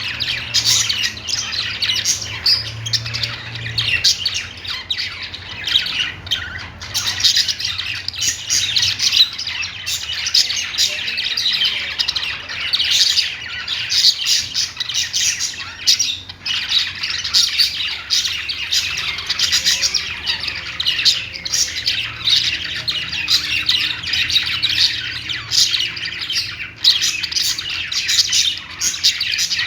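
Several pet budgerigars chattering and warbling without a break, with quick chirps and squawks.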